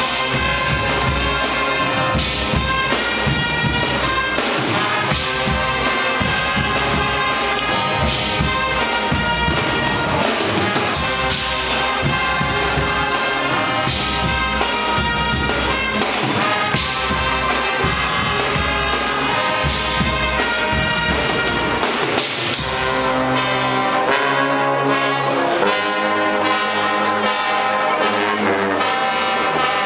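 Guggenmusik carnival brass band playing loudly: trombones, trumpets and sousaphones.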